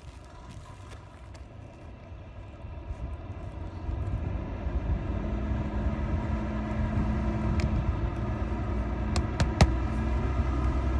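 A low engine rumble swells about four seconds in and holds steady. Near the end come a few sharp knocks of a hammer driving roofing nails into asphalt shingles.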